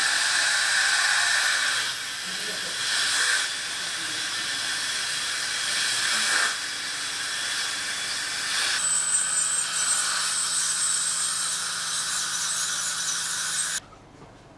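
Dental suction hissing steadily, its level shifting now and then. A thin high whine joins about nine seconds in, and the hiss cuts off suddenly near the end.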